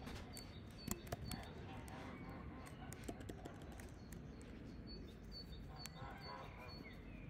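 Computer keyboard typing: scattered, irregular keystroke clicks over a low steady background hum.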